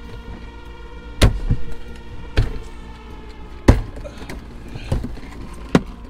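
Five sharp thumps, roughly a second or so apart and the middle one the loudest, over quiet background music with held notes.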